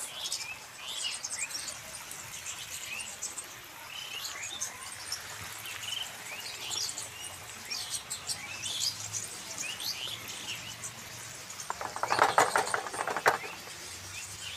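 Potato sticks frying in hot oil in a pan, with a faint steady sizzle, while birds chirp repeatedly around the outdoor stove. A louder rattling burst comes about twelve seconds in.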